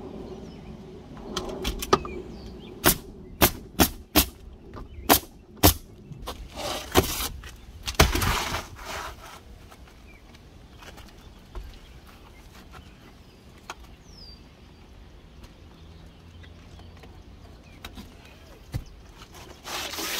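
Pneumatic roofing nailer driving nails into an asphalt shingle: six sharp shots about half a second apart, followed by two longer scraping noises as shingles are handled.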